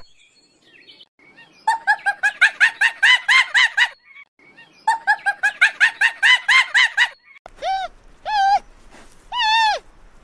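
Animal calls: two bouts of quick, pitched chirps, about six a second, then from about seven and a half seconds three separate longer calls that rise and fall, the last the longest.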